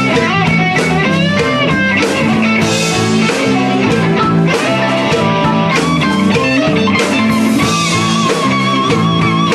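Song with electric guitar playing over bass and drums, a full band mix with a steady beat.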